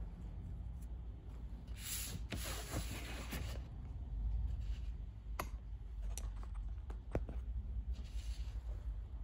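Camera handling noise: rubbing and rustling for about two seconds, starting about two seconds in, with a shorter, fainter rustle near the end and two sharp clicks between them.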